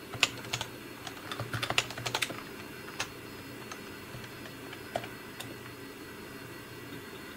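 Computer keyboard keys being typed: a quick run of keystrokes in the first couple of seconds, then a few single key presses spaced out, over a steady background hum.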